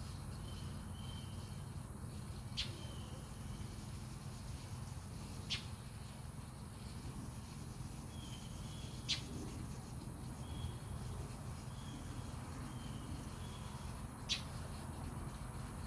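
Insects chirping in short repeated calls over a steady high-pitched drone and a low rumble, broken by four sharp clicks spaced a few seconds apart.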